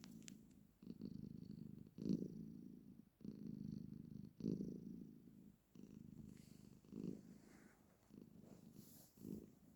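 Domestic cat purring in a low, rhythmic rumble, rising and falling with each breath in phrases of one to two seconds, with brief breaks between them.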